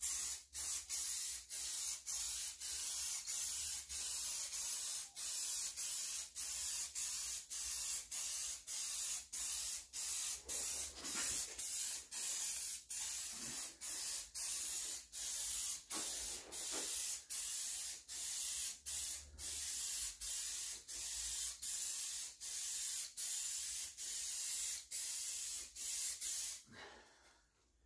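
Clear lacquer being sprayed on a car body panel as a second coat: a hiss in quick, even bursts, about three every two seconds, which stops about a second before the end.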